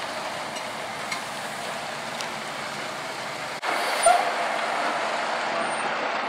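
International medium-duty truck driving slowly past, a steady engine and road noise. About three and a half seconds in the sound cuts and comes back a little louder, with a short knock soon after.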